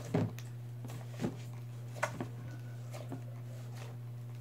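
Hands kneading a large lump of slime in a stainless steel bowl: a handful of short squelches and knocks against the bowl, about one a second, over a steady low hum.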